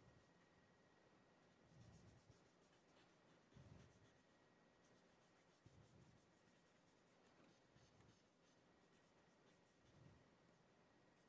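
Very faint scratching of white chalk being drawn across a black board, in a few soft strokes a couple of seconds apart.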